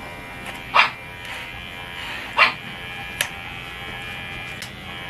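Cordless electric pet clipper running with a steady hum as it trims a shih tzu's long coat; it is not very loud. Two short, sharp sounds cut in over it, about a second in and again a second and a half later.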